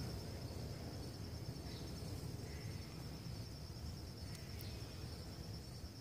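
Crickets trilling in a steady, high, even chorus over a low rumble.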